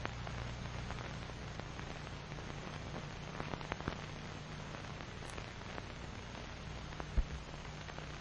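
Surface noise of an old film soundtrack: steady hiss over a low hum, with scattered crackles and clicks and one low thump about seven seconds in.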